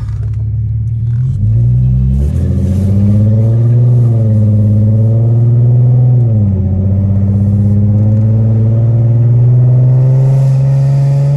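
Infiniti G37's swapped-in VR30 twin-turbo V6 pulling under acceleration, heard from inside the cabin. The engine note climbs about two seconds in, holds with a slow rise, and drops sharply past the halfway point. It then climbs slowly again until it falls at the very end.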